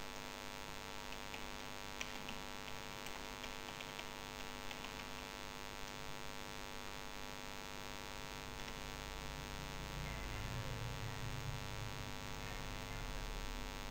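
Steady electrical mains hum on the recording, made of many evenly spaced tones. Faint keyboard clicks come through in the first few seconds while text is typed.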